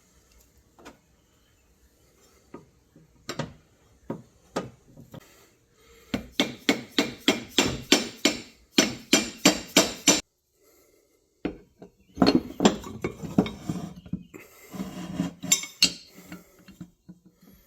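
Metal parts and hand tools clinking and tapping, with a few scattered knocks and then two quick runs of strikes at about four a second, followed by a short stretch of scraping.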